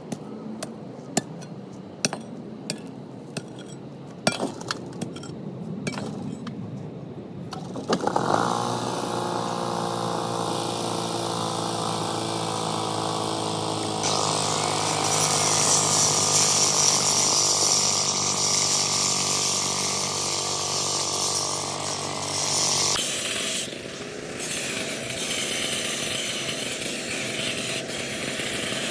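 Scattered knocks and clicks, then about eight seconds in a small engine-driven power tool starts and runs steadily. It runs louder from around fourteen seconds and drops back to a lower pitch near twenty-three seconds.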